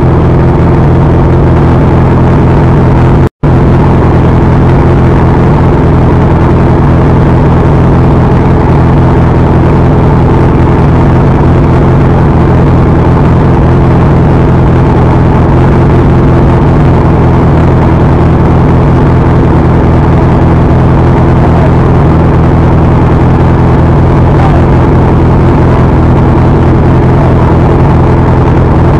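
Motor scooter engine idling at a steady pitch, picked up very loud and distorted by a camera mounted on the scooter, with a brief cut-out about three seconds in.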